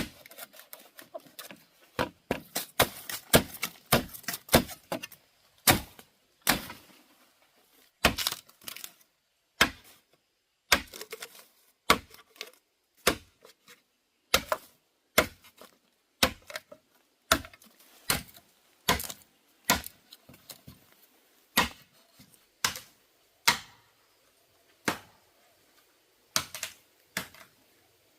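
Repeated sharp chopping strikes on wood, about one or two a second, coming in quicker runs during the first few seconds.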